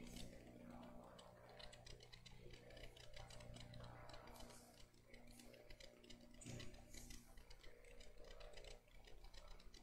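Near silence: faint room tone with a low steady hum and light scattered ticking.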